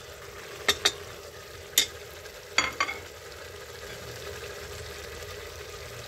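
Onion-tomato masala sizzling gently in an aluminium pressure cooker, with five sharp metal clinks against the pot in the first three seconds as chopped dill greens are tipped in and stirred.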